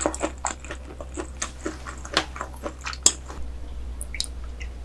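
Close-miked chewing: a quick run of wet clicks and smacks that thins to a few faint clicks after about three seconds.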